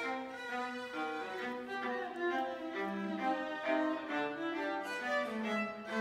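Two violas playing a ragtime duet together: quick bowed notes over longer low notes.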